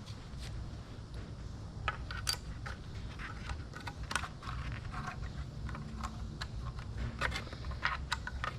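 Scattered small clicks and taps of hand work with tools and parts during a car speaker install, over a low steady rumble.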